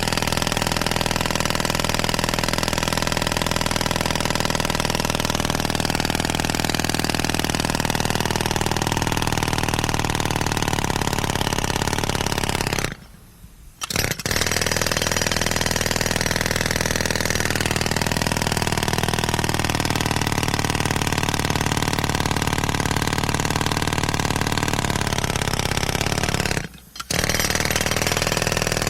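Pneumatic air hammer hammering rapidly and continuously, with its pitch drifting up and down. It stops briefly twice, about 13 seconds in and again near the end, then starts again.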